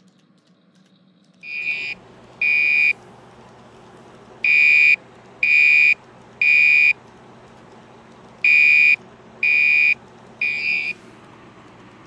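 Fire alarm sounding the temporal-three evacuation signal: three half-second high-pitched blasts, then a pause, repeating. It starts about a second and a half in, over a steady low hum.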